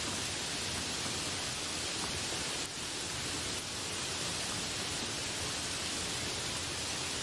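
Heavy rain pouring steadily on trees and broad banana leaves, an even hiss with no thunder.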